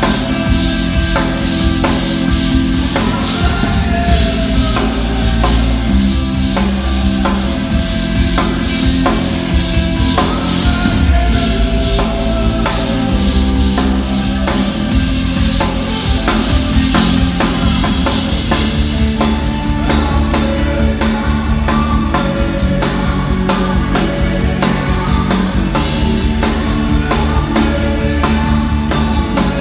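Live rock band playing: a drum kit keeping a steady beat under guitar and other sustained pitched parts.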